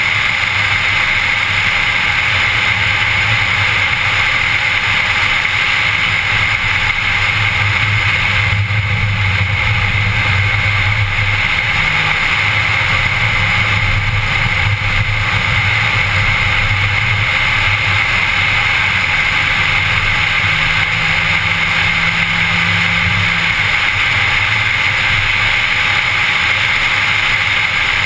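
A car driving at steady speed, heard from inside the cabin: a low engine drone under a steady rush of road and wind noise.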